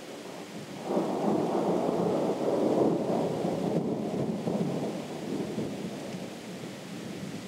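Distant thunder: a rumble that starts suddenly about a second in, swells for a couple of seconds and then slowly dies away, over a steady faint hiss.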